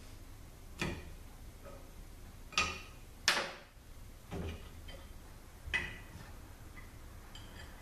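Metal parts of a 42RLE transmission's oil pump clinking and knocking as its gerotor gears are handled. There are about five separate clinks, some with a short ring, and the loudest comes about three seconds in.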